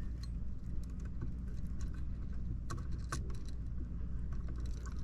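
Small scattered metallic clicks and taps of bare copper ground wires being bent around a receptacle's screw terminal, over a steady low hum.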